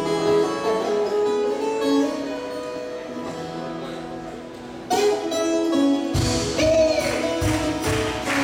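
A live folk band starts a song. For the first few seconds there are long held notes and chords from the accordion and the plucked viola caipira. About six seconds in, drums join with a steady beat.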